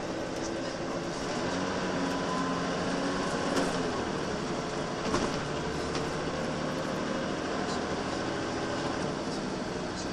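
Cabin noise of a Volvo B10BLE single-deck bus under way: steady engine drone and road noise. Two sharp knocks or rattles about three and a half and five seconds in.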